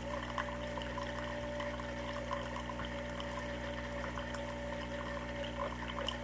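Cuisinart SS-101 single-serve coffee maker brewing: its pump hums steadily while coffee streams and splashes into the cup below.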